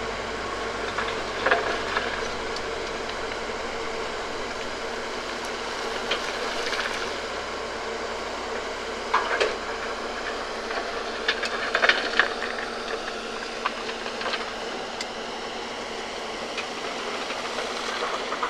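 Hyundai crawler excavator running: a steady diesel engine and hydraulic drone with a held whine, broken by several sharp metallic clanks. The low rumble eases after about six seconds.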